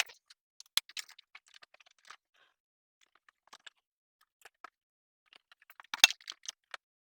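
Scattered clicks, knocks and light rattles of parts being handled on a snowmobile as its stock exhaust can is uncovered, with a sharp clack about a second in and a louder cluster of knocks around six seconds in.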